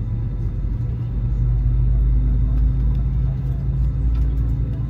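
Steady low rumble with a faint, even hum inside the cabin of an Airbus A320 on the ground around pushback.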